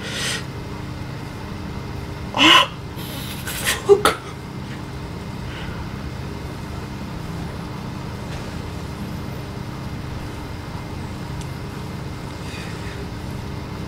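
A steady low rumble, with a few short vocal bursts in the first four seconds.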